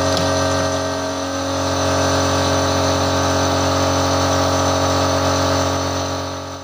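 A motor running at a steady speed: a constant, even hum that fades away near the end.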